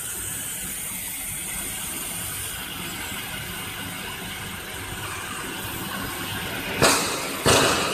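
1500 W fiber laser cutting 6 mm stainless steel: a steady hiss from the cut and the cutting head's gas jet, with a faint hum under it. Near the end come two sudden loud bursts of hiss, less than a second apart.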